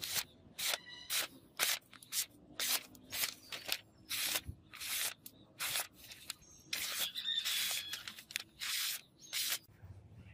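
Katana blade slicing through a sheet of paper in a paper-cutting sharpness test: a quick series of short, crisp slicing hisses, with a couple of longer cuts in the second half.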